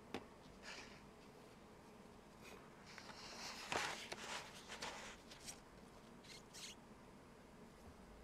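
Faint handling noises: a small M5Stack plastic unit being picked up and set down on a glossy magazine, with light clicks and paper rustling, loudest about four seconds in.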